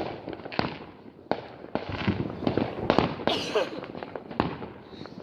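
Fireworks going off: irregular sharp bangs and cracks, about eight in five seconds.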